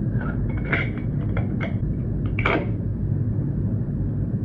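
Small cassette parts clicking and knocking as they are handled and fitted together: a handful of light clicks, the loudest about two and a half seconds in, over a steady low hum.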